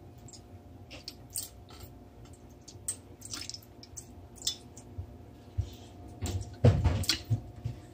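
Bottled lemon juice splashing from its bottle into a glass baking dish in short spurts and drips, with a few louder knocks of handling about six and a half seconds in.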